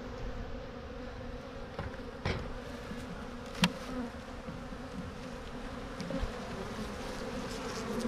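Honeybees buzzing in a steady hum around an opened hive box. Two sharp knocks stand out about two and three and a half seconds in.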